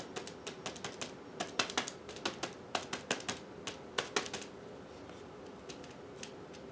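Rapid, irregular light taps of a small ink pad dabbed onto a 3D-printed TPU stamp on a clear acrylic block as the stamp is inked, thinning out after about four and a half seconds.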